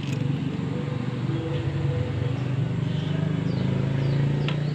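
A motor vehicle engine running steadily, its pitch rising a little in the second half, with a short sharp click near the end.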